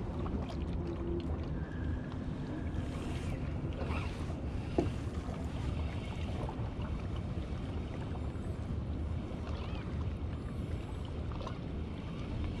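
Steady low rumble of wind and water lapping along a rocky shoreline, with one sharp click about five seconds in.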